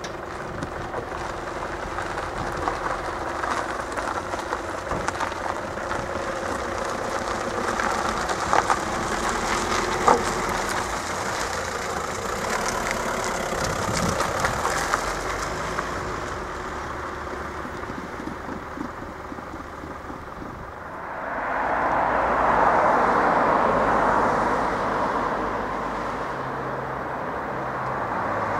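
A train running past at a railway level crossing, a steady rushing rumble with scattered clicks from the wheels on the rails. About three-quarters of the way through a louder rush of passing traffic sets in.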